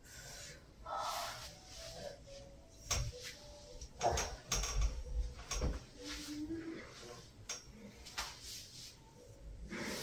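Bare feet stepping and pressing on a person's back on a massage table: a series of short knocks, creaks and pops as weight shifts, with a few dull thuds in the middle.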